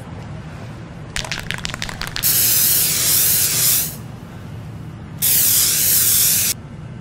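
Aerosol spray paint can: a short rattle of clicks about a second in, then two long hisses of spray, each well over a second, about a second apart.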